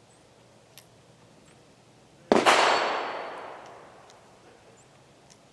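A single shot from a Smith & Wesson Model 36 .38 Special snub-nose revolver, a little over two seconds in, its report echoing and dying away over about a second and a half.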